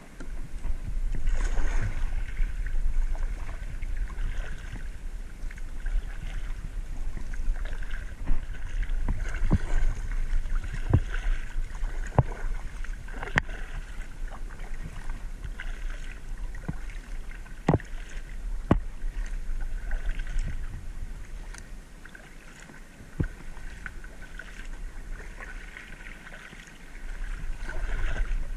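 Kayak paddle strokes in calm water: splashing and dripping that swells and fades with each stroke, with scattered sharp knocks and a steady low rumble underneath.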